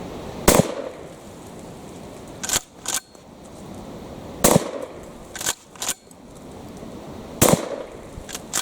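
Three loud shots from a pump-action 18.5-inch tactical shotgun, about three to four seconds apart, each followed about a second later by a pair of lighter clicks as the pump is worked back and forward. A steady rush of wind runs underneath.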